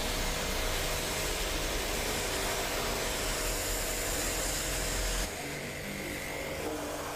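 Portable high-pressure washer running: a steady electric motor hum under the hiss of the water jet. About five seconds in the sound drops abruptly to a quieter, steady hum.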